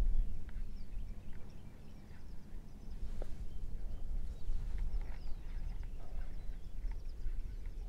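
Marsh birds calling: many short, faint, high chirps scattered through, over a continuous uneven low rumble.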